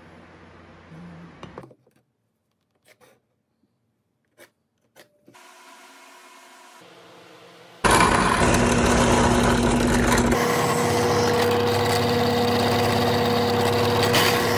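Benchtop drill press starting suddenly about eight seconds in and running with a steady motor hum as it bores holes into a wooden block; the hum steps higher a couple of seconds later. Before it, a few faint clicks.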